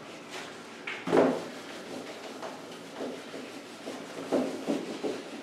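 Whiteboard being wiped clean: a series of short rubbing strokes across the board, the loudest about a second in.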